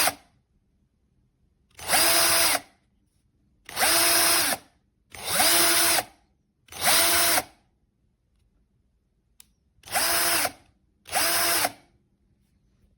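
AVID Power 20V cordless drill run in six short trigger pulls, each under a second. Each time the motor spins up to a steady whine and winds down again, with pauses of a second or more between pulls.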